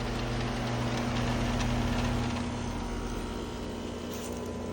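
Outdoor air-conditioner unit running: a steady electric hum, its deepest part easing off about two and a half seconds in.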